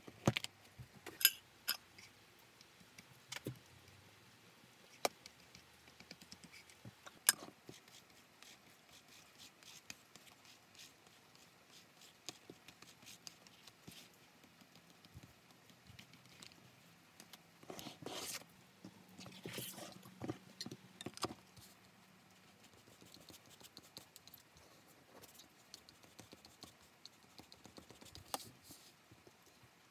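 Quiet workbench handling sounds: scattered sharp taps and clicks as leather, a foam block and board are set down on a cutting mat, and a louder stretch of rustling and scraping a little past the middle. Near the end, a flat spatula scrapes glue across paper.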